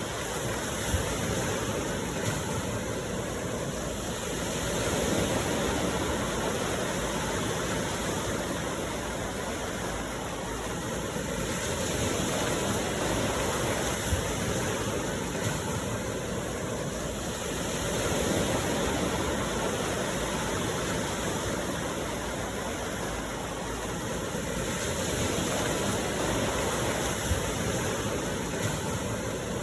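Steady rainfall, a dense even hiss that swells and eases every few seconds, with an occasional single sharp tap.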